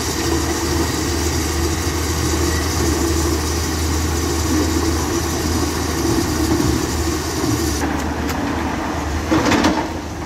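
Dump truck's engine idling under load while crushed rock pours off its tipped bed and slides down a concrete embankment in a steady rushing clatter. The highest part of the rush drops away about eight seconds in, and a short, louder burst comes just after.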